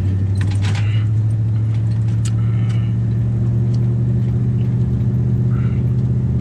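Steady engine and road drone heard inside a moving vehicle's cabin, with a few light clicks and taps in the first few seconds.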